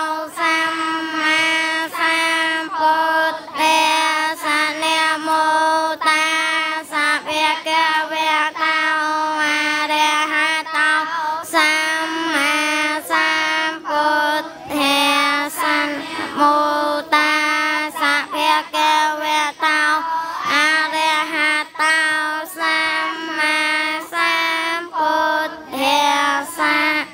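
Many children chanting Buddhist prayers together in unison, a sing-song recitation on a steady pitch, phrase after phrase with brief pauses between.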